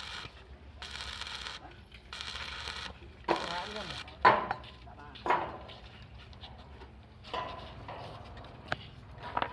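Steel frame metalwork: short bursts of hiss, then several sharp metallic knocks that ring on, with a few lighter clicks later.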